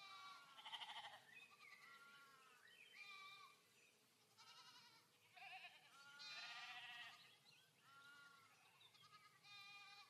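A flock of goats and sheep bleating, many quavering calls one after another and overlapping, faint.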